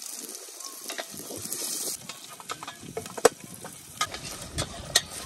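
Chopped onion and garlic sizzling in a stainless steel pot, then, from about two seconds in, a wooden spatula stirring them and knocking sharply against the pot a few times.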